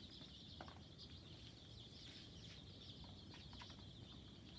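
A brood of young chicks peeping all together, a faint, continuous chorus of high peeps.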